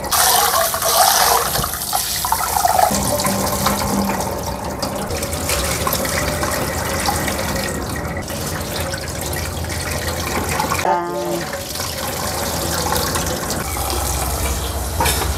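Water running and splashing in a stainless steel sink as rice is rinsed by hand in a rice cooker's inner pot, with the tap running into the pot, steady throughout apart from a brief break about two-thirds of the way through.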